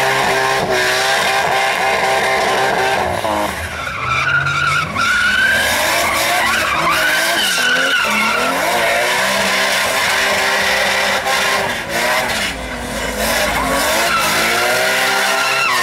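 Nissan Cefiro drift car doing a smoky burnout: the engine is held high in the revs, dipping and climbing again a couple of times, while the spinning rear tyres skid and squeal.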